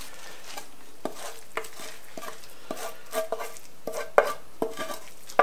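A utensil scraping and knocking in a frying pan as scrambled eggs with boletus mushrooms are stirred and turned out, over a faint steady sizzle. The clicks are irregular, with the sharpest knocks about four seconds in and at the very end.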